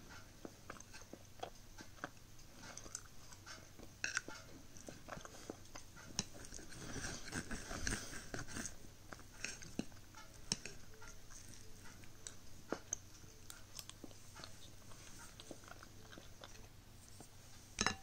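Fork and serrated knife clicking and scraping against a ceramic plate while cutting a soft pastry, mixed with chewing. It is busiest a few seconds past the middle, with a sharp clink of metal on the plate at the very end.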